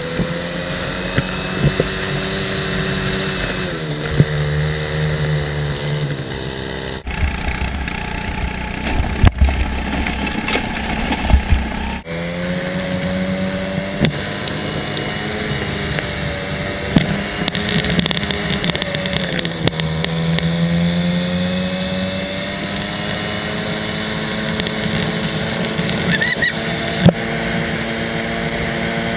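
Racing go-kart engine heard onboard at speed, its pitch climbing and dropping as the driver accelerates out of corners and lifts into them. For a few seconds a quarter of the way in, the engine tone drops out into a duller stretch with a few sharp knocks, then cuts back abruptly.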